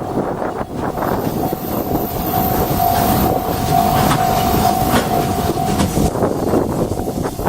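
Freight train hauled by a JR Freight EH500 electric locomotive rolling past over a level crossing, its wagons' wheels clattering over the rail joints. A steady ringing tone from the level crossing's warning bell sounds along with it.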